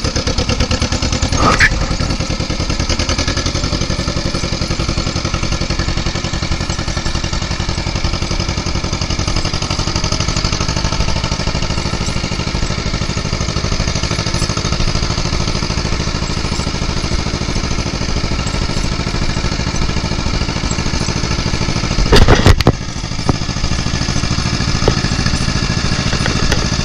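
1955 John Deere 40S's two-cylinder engine running steadily under way, with a fast, even pulsing. Late on, a brief, loud clatter or knock stands out above the engine.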